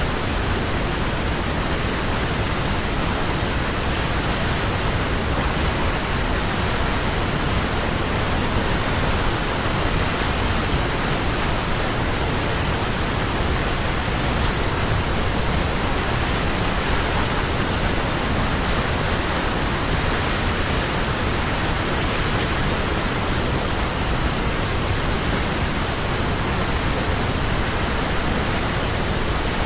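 Waterfall: falling water rushing in a steady, even roar with no breaks.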